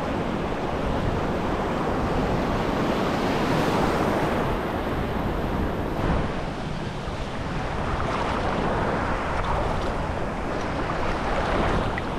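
Small ocean waves breaking and washing in shallow surf right around the microphone, rising and falling as each wave passes, with wind rumbling on the microphone.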